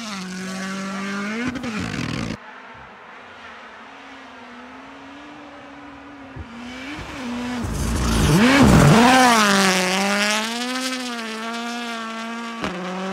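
Ford Puma Rally1 rally car's turbocharged engine at full speed on a snowy stage. The engine note fades away and drops off abruptly about two seconds in. It builds again and the car comes by loudly about eight seconds in, the pitch dipping and climbing back, then holds a high wavering note as it pulls away.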